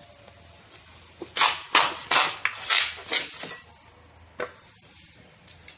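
Raw green papaya being cut against a bonti blade: a quick run of six or seven crisp slicing strokes about a second in, then a couple of single strokes later.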